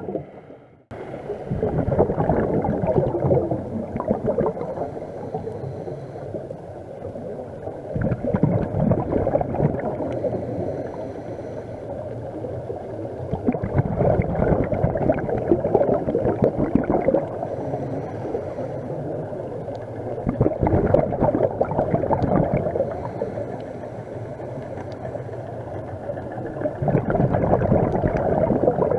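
Scuba exhalation bubbles rushing past an underwater camera housing: a crackling, gurgling rush that swells about every six seconds with each breath out through the regulator, with quieter hiss between breaths.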